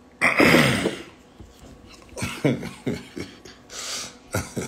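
A person coughing: one loud cough just after the start, then several shorter coughs and throat-clearing sounds.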